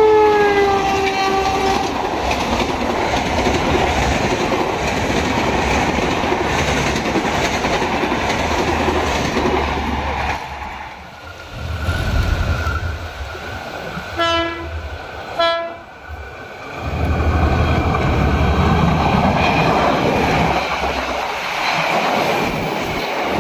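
Diesel locomotive horn dropping in pitch as a passenger train passes, followed by the rumble and wheel clatter of its coaches going by. About halfway through, a second diesel-hauled train gives two short horn blasts as it approaches, and its coaches then rumble and clatter past close by.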